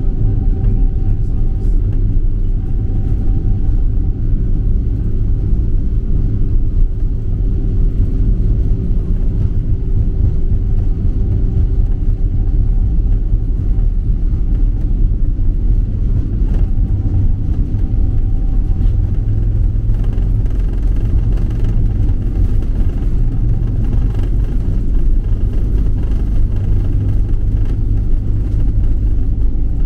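Cabin noise of a Boeing 777-300ER taxiing on its GE90 engines: a steady low rumble with a faint steady whine above it.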